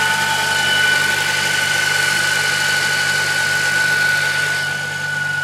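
2007 Honda Civic Si's 2.0-litre four-cylinder idling, with a steady high whine over the engine hum. This is the noise from under the hood at idle that stops whenever the clutch pedal is pressed, which points to the clutch or gearbox side rather than the engine itself.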